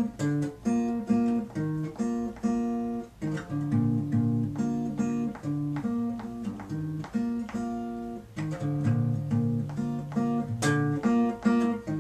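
Acoustic guitar playing a repeating chord pattern of picked and strummed notes, the instrumental intro to a song.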